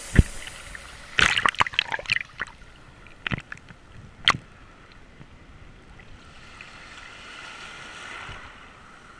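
Shallow waves sloshing over and around a GoPro action camera held partly underwater, the water knocking and crackling against its housing. There is a sharp knock just after the start and a run of splashy clicks in the first half, then a softer rush of water that swells and fades near the end.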